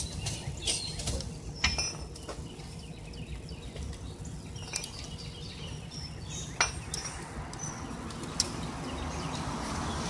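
Scattered sharp metallic clinks and taps, a few of them louder, over a steady low rumble, as tow gear is handled at the back of a vehicle being hooked up.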